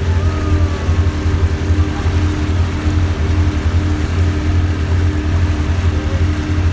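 A boat's engine running at a steady low hum under way, with a few faint bird calls from the gulls and kites following the stern.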